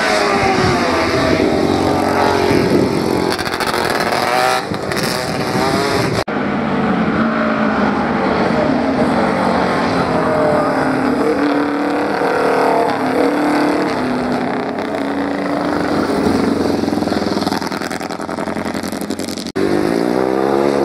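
Racing sidecar motorcycle engines accelerating hard out of corners, their pitch rising and falling as they rev through the gears. The sound breaks off briefly twice, where one outfit's pass gives way to the next.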